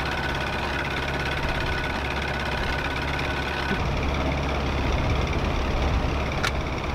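Boat's outboard motor running steadily under way, with a steady low hum and the noise of wind and water around the moving hull. A single short click sounds just before the end.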